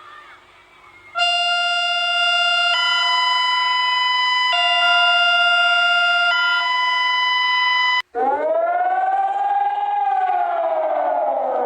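Emergency alert tone: a steady electronic chord alternating between two pitches about every second and three-quarters for several seconds. After a sudden cut, a civil-defense-style siren wail takes over, sliding up and then slowly down.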